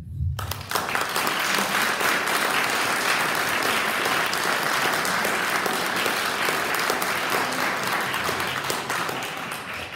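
Audience applauding: many hands clapping steadily for nearly ten seconds, easing off near the end.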